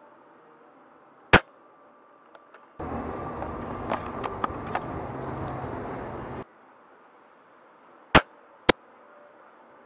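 Sharp snaps from a spring-powered bolt-action airsoft sniper rifle, a JG BAR10: one about a second in, and two about half a second apart near the end. Between them is a few seconds of steady outdoor noise with a few faint ticks.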